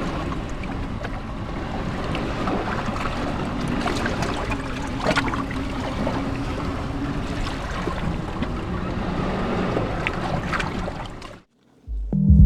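Ocean waves washing and splashing between shoreline rocks, a steady surge with small splashes and a faint low drone underneath. It cuts off about a second before the end, and background music with a steady beat starts.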